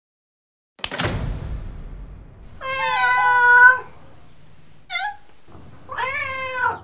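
A sudden knock about a second in, then a domestic cat meowing three times: one long meow, a short one, and another near the end.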